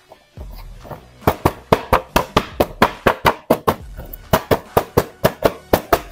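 Clear plastic packaging of a toy action figure crinkling and crackling as it is handled: a rapid run of sharp crackles, about four a second, with a brief pause partway through.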